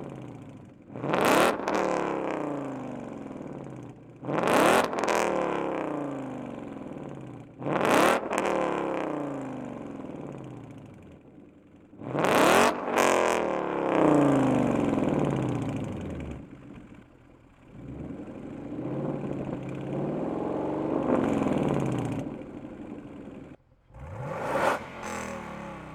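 Ford Mustang GT V8 exhaust: a series of sharp throttle blips, each rising fast in pitch and falling back slowly, with a double blip about halfway through and longer, gentler swells in revs after it.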